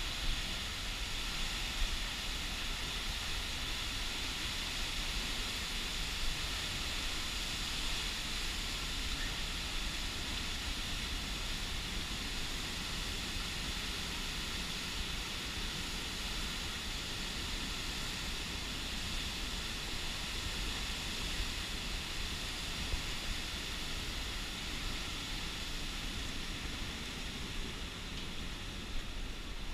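Tunnel Falls, a tall waterfall on Eagle Creek, pouring in a steady, unbroken rush of falling water.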